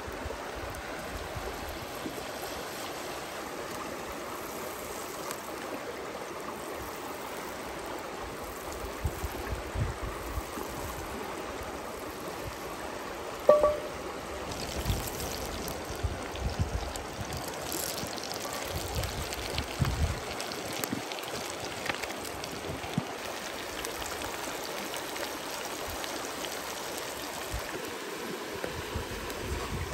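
A shallow creek running steadily over rocks. Over it come scattered knocks and clinks of a utensil against a cast iron skillet, the loudest a sharp ringing clink about halfway through, followed by butter sizzling in the pan.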